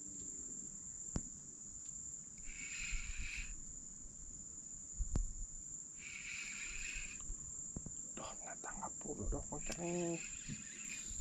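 Insects calling: a steady high shrill, joined twice by a lower buzzing call about a second long. Two short sharp knocks fall in between.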